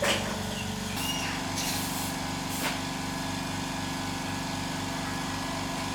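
A small engine running steadily with an even low pulse, its speed stepping up a little about a second in, with a few short clicks or knocks over it in the first three seconds.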